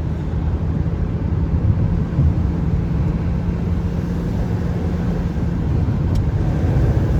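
Car driving, a steady low engine and road rumble heard from inside the cabin.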